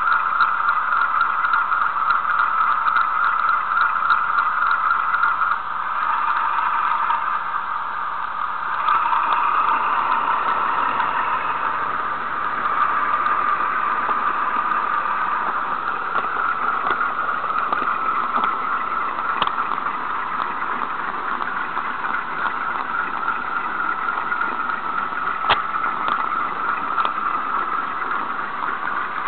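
Sound-fitted Bachmann Class 47 model diesel locomotive running: the DCC decoder's diesel engine sound plays steadily through the model's small loudspeaker as it shunts, shifting in tone about 6 and 9 seconds in. It is picked up thinly by a cheap miniature camera riding on the model.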